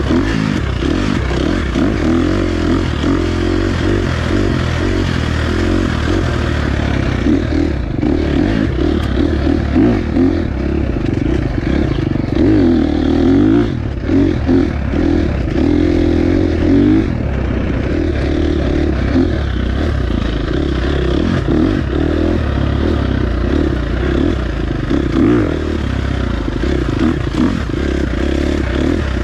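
2023 KTM 350 XC-F, a single-cylinder four-stroke dirt bike, being ridden, its engine note rising and falling with the throttle, with frequent knocks and rattles.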